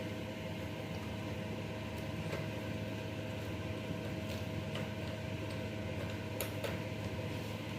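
Steady low hum with a thin, even tone above it, and a few faint clicks now and then.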